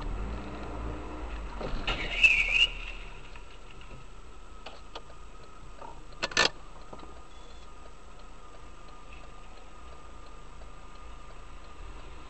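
Steady low hum of a car on the road, with a short, loud squeal about two seconds in and a sharp knock about six seconds in.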